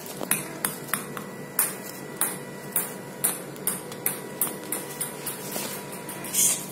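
A run of sharp clicks, about two a second and slightly uneven, over a faint steady high tone, with the loudest click near the end.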